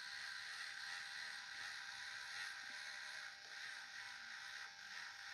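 A 3Doodler Start+ 3D pen's small feed motor whirring faintly and steadily as it pushes filament out of the nozzle.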